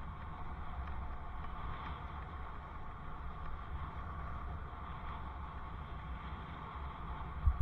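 Steady low rumble and wind hiss of a bicycle ride picked up by a helmet-mounted camera, with a sharp bump near the end.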